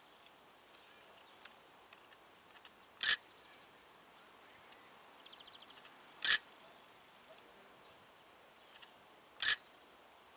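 Small birds chirping and trilling over a quiet background, with three short, sharp, loud sounds at even spacing about three seconds apart, the loudest thing heard.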